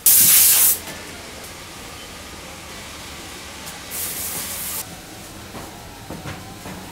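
Factory machinery over a steady background hum, with two short bursts of hiss: a loud one at the start lasting under a second, and a weaker one about four seconds in. A few light clicks follow near the end.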